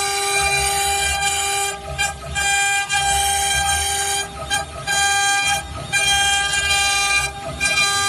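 CNC router spindle whining at a steady pitch while its bit engraves letters into an MDF sheet. The cutting noise comes in spells of about one to two seconds with short breaks between them as the bit works through each letter stroke.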